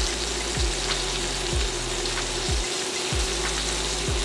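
Flour-coated stuffed pork chops searing in hot oil in a cast iron skillet: a steady sizzle, with background music's low beat about twice a second underneath.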